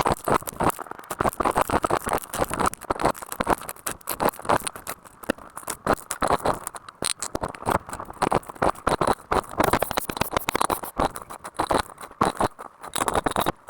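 Dense, irregular crackling and rustling: many small clicks and scrapes in quick succession, keeping on throughout.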